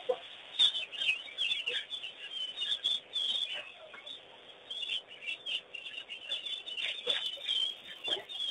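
Many wild birds calling over one another, a busy, continuous chatter of short chirps and calls.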